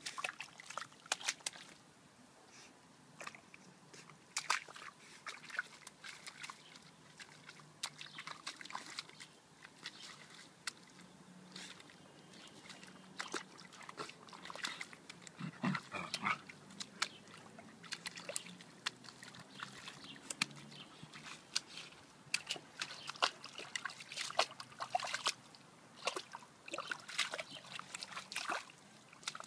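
Dog splashing in a shallow muddy puddle, its muzzle and paws slapping and sloshing the water in irregular short splashes.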